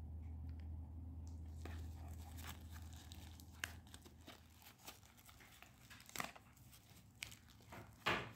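Packaging crinkling and tearing during an unboxing, with scattered clicks and a sharper snap near the end. A low hum sits under the first half.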